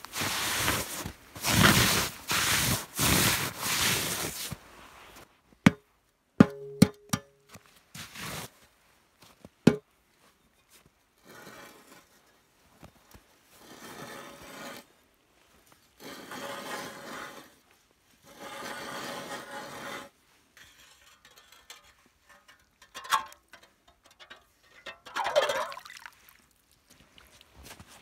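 Loud crunching of boots on snow and ice, then a few sharp knocks. A hand ice auger then grinds into pond ice in repeated scraping strokes of a second or two each, with a couple of louder scrapes near the end.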